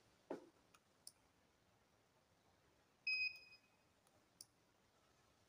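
A single short electronic beep from a UNI-T UT501A insulation resistance tester about three seconds in, during a 500 V insulation test. A few faint clicks come before and after it.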